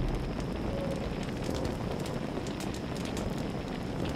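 A steady hiss of outdoor ambience with faint, scattered crackles and ticks.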